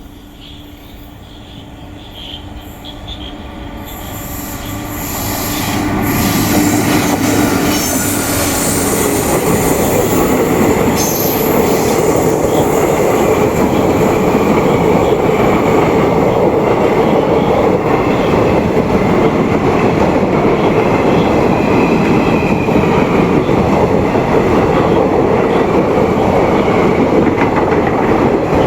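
Train approaching, growing louder over the first several seconds, then running past close by with a loud, steady rumble of railcars and occasional wheel squeal.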